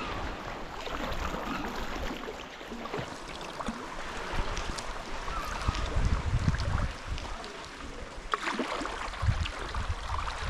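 Water splashing and lapping around a sea kayak as it is paddled, with a few sharp clicks and, now and then, low rumbles of wind on the microphone.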